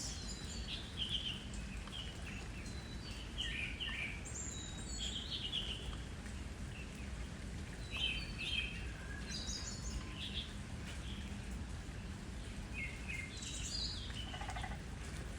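Small birds chirping in short, high calls scattered throughout, over a steady low background noise.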